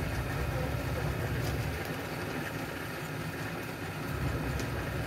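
A steady low hum of a running motor or engine, with a few faint ticks over it.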